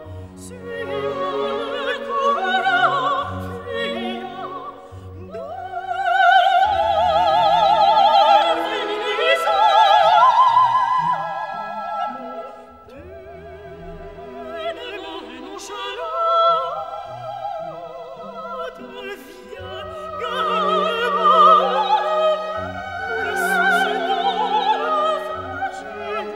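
Operatic singing with vibrato over an orchestral accompaniment.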